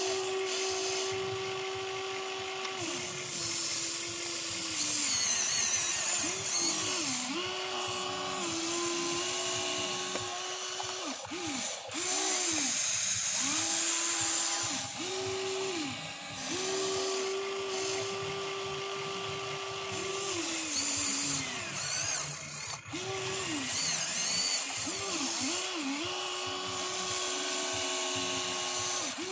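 Huina radio-controlled excavator's electric motors running with a steady whine that repeatedly dips and bends in pitch as the boom, arm, bucket and swing start, stop and take load while it digs soil and loads a dump truck.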